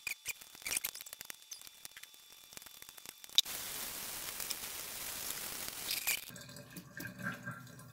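Squeaky rubbing and small clicks as wet paintbrush bristles are worked by hand in a stainless steel sink. About three and a half seconds in, a sharp click is followed by water running steadily into the sink for about three seconds, which cuts off suddenly, leaving quieter splashing and handling.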